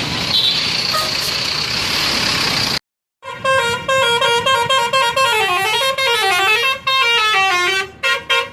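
Bus telolet horn, a multi-tone musical horn, playing a quick tune of short notes that step up and down for about five seconds. Before it comes about three seconds of loud, even noise with a high steady tone, broken off by a brief silence.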